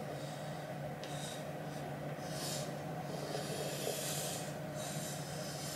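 Plastic Ouija planchette sliding over the board under fingertips, a few short soft scrapes about a second apart, over a steady low room hum.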